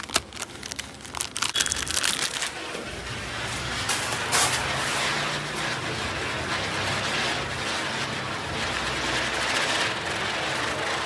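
Plastic packaging crinkling and clicking for the first couple of seconds. Then a whistling-wheel ground spinner (chakri) firework catches a few seconds in and spins, burning with a steady hiss.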